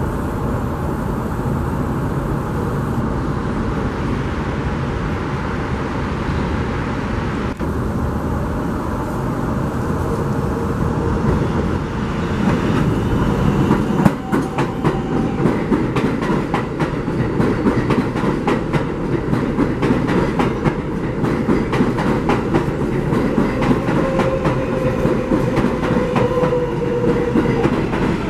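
New York City subway train running through an elevated station: a steady rumble that turns, about halfway through, into rapid clickety-clack of wheels over rail joints, with a faint falling whine near the end.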